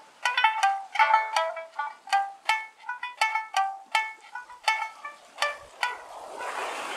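Amami sanshin, a snakeskin-covered three-string lute, plucked solo in a quick melodic phrase of about three sharp, ringing notes a second. Near the end a wave washes in on the shore under the playing.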